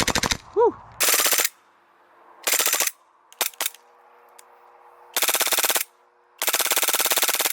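Airsoft Glock 18C pistol firing on full auto in short, rapid bursts of about half a second each, with pauses between them. The first burst cuts off just after the start, and two single shots come about three and a half seconds in.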